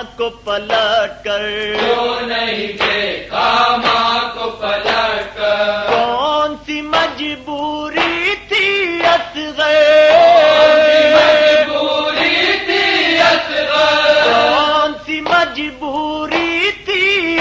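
Men chanting a noha, an Urdu lament, holding long wavering notes over a regular beat of hand strikes.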